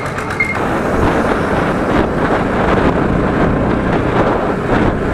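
Motorcycle engine running as the bike rides along the road, mixed with wind rushing over the camera microphone, growing a little louder about a second in as it gets moving.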